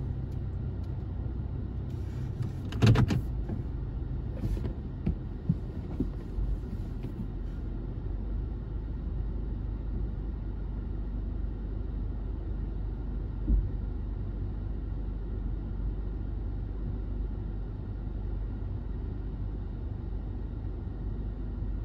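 Stationary car idling, heard from inside the cabin as a steady low rumble. A loud brief thump comes about three seconds in, with a few fainter knocks over the next few seconds.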